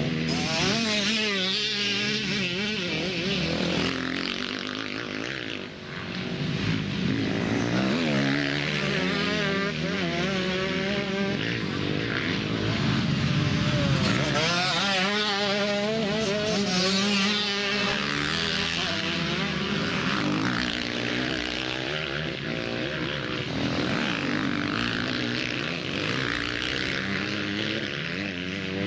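Motocross bikes' engines revving up and down as riders pass one after another, several bikes heard at once, near and further round the track. The overall level dips briefly about six seconds in.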